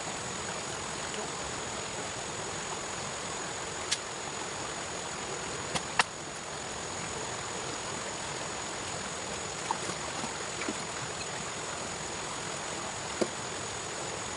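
Steady rushing of flowing water under a thin, steady high-pitched whine. A few sharp clicks or knocks come about four seconds in, twice around six seconds in, and once near the end.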